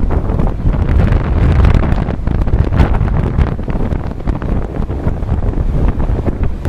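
Strong wind buffeting the microphone in loud, gusty low rumbles, over the wash of rough surf breaking on the beach.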